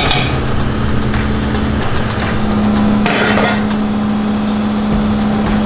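Cotton candy machine running with a steady motor hum, with a long metal scoop clinking against the machine's metal bowl. About three seconds in there is a short burst of noise.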